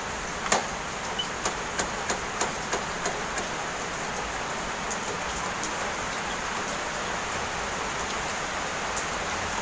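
Heavy rain falling, a steady hiss, with a run of light clicks, about three a second, during the first three seconds.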